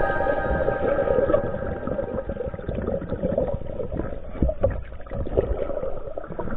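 Muffled water sloshing and irregular knocks around a small fishing boat at sea. Background music fades out at the start.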